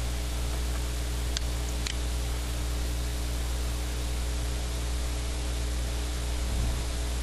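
Steady hiss with a low electrical hum from the recording microphone and its sound card, with two faint clicks about a second and a half in.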